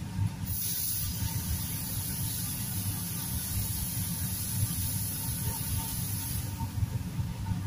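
Kitchen tap running into a steel sink with a high hiss, switched on about half a second in and shut off suddenly about six seconds later, over a steady low hum.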